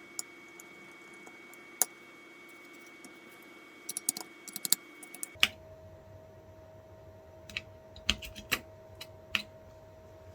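Irregular sharp clicks and taps of small parts being handled during a door lock teardown, with a quick cluster about four to five seconds in and more around eight to nine seconds, over a steady faint hum. The background hum changes abruptly about five seconds in.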